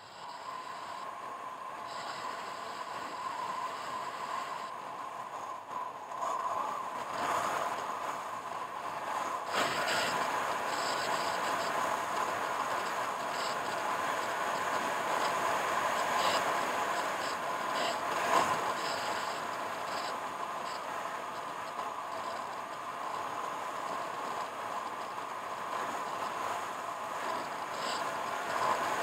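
Steady vehicle running noise with scattered rattles and scrapes, growing louder over the first several seconds.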